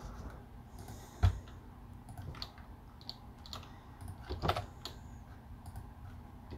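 Scattered computer keyboard keystrokes and clicks with pauses between them, one sharper click about a second in and a small cluster about four and a half seconds in.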